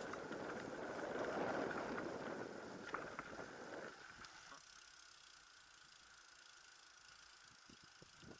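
Steady rumble of a bicycle being ridden, with a few sharp clicks. It drops away about four seconds in, leaving only faint scattered ticks.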